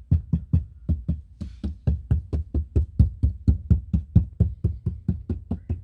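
Rapid, even knocking on the plastic dashboard panel of a Lada Granta FL, about five knocks a second, to test it for rattles. The panel has been lined inside with vibration-damping and sound-deadening sheet, and the owner says it still rattles, though not as badly.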